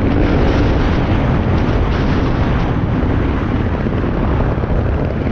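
Dirt bike engine running as the bike is ridden, with wind rushing over the microphone.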